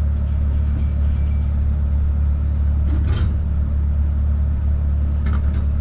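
Truck engine running at low speed, heard from inside the cab as a steady low drone, with a brief noise about three seconds in.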